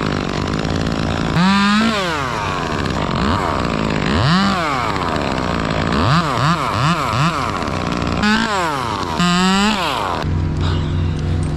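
Two-stroke chainsaw revved up and down in quick bursts, its pitch climbing and falling again and again. About ten seconds in it drops to a steady, lower, pulsing idle.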